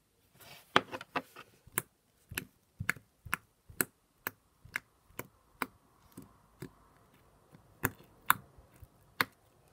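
Sticky pink slime in a plastic tub being poked with a fingertip, giving a series of sharp clicking pops, about one every half second to second, sparser in the last few seconds.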